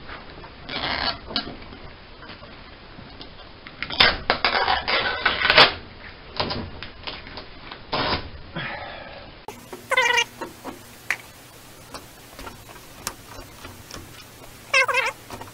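Old Poly-Fiber aircraft fabric and tape being scraped and peeled off with a putty knife: short bursts of scraping and tearing, with a longer, louder run about four seconds in. Two short high squeals that rise and fall in pitch come about ten seconds in and near the end.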